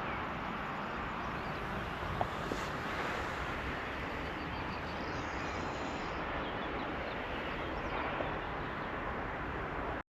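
Steady outdoor background noise, with two light clicks, one about two seconds in and one near the end.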